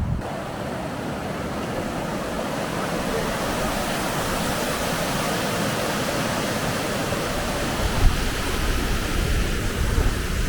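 Rushing water: a steady, even hiss, with wind buffeting the microphone in a couple of low thumps near the end.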